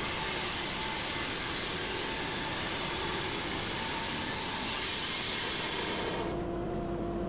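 Wood-Mizer LT15 band sawmill sawing through a log, played at eight times speed: a dense, steady rushing noise. About six seconds in the hiss drops away, leaving a lower steady hum with a held tone as the saw head clears the end of the log.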